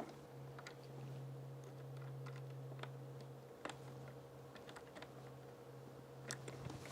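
Faint scattered clicks and taps of plastic parts being handled and screwed together by hand, with a couple of sharper clicks, over a steady low hum.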